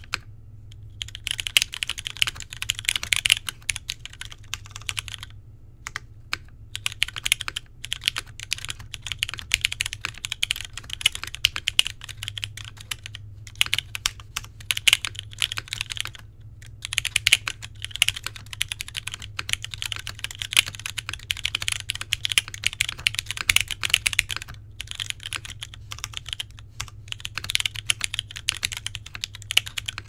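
Typing on a Geonworks Frog TKL mechanical keyboard with broken-in, lightly lubed Cherry MX Brown Hyperglide tactile switches on a POM plate, under GMK keycaps. The keystrokes come in a fast, steady stream, broken now and then by short pauses.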